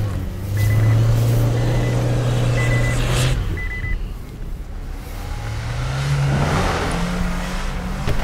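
Renault Arkana's 1.3-litre turbo four-cylinder engine held at steady high revs for about three seconds, dropping off, then revving up again about two seconds later as the crossover strains in loose sand. Short high electronic beeps from the car repeat several times in the first three seconds.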